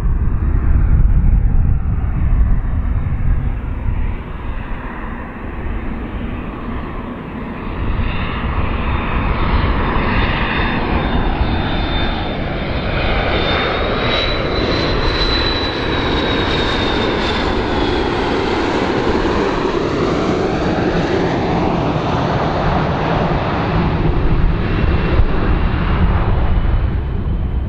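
McDonnell Douglas MD-80-series airliner on landing approach, its rear-mounted Pratt & Whitney JT8D turbofans giving a steady jet roar with a low rumble as it passes. A high engine whine runs through the sound, rises slightly about halfway through, then fades.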